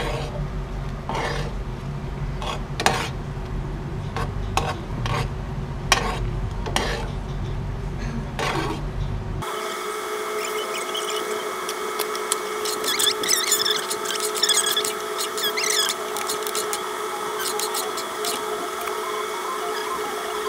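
A spoon scraping and stirring around a pot of thickening rice porridge, in repeated rasping strokes. About halfway through the sound changes abruptly: a low hum drops away, and steady tones with high squeaks carry on.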